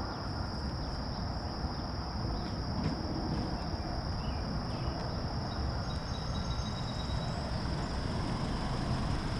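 Insects droning at one steady high pitch over a constant low rumble.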